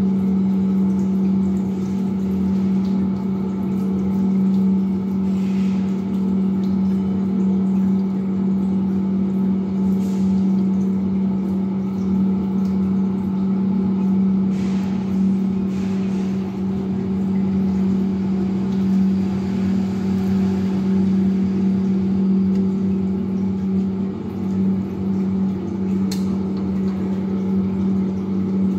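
Electric water pump of a hydraulic bench running steadily, feeding water to a Hele-Shaw flow apparatus: a constant low hum with a few faint ticks now and then.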